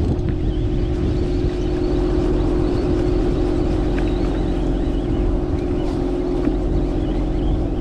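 Fishing boat's engine running steadily, a constant droning hum.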